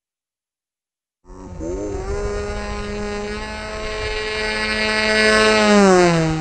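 Electric motor and propeller of an FPV flying wing running at steady throttle, a buzzing drone that starts about a second in and grows gradually louder. Near the end it drops in pitch before cutting off.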